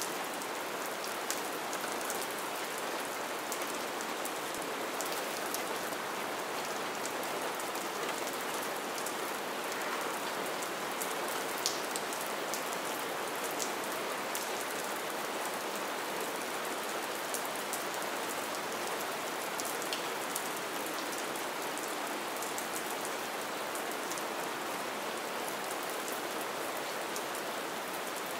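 Gentle rain falling steadily: an even hiss with many small, sharp drop ticks scattered through it.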